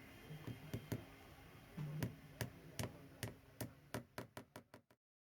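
A run of sharp knocks that come faster and fainter, like something hard bouncing to rest, ending in a quick patter before the sound cuts off.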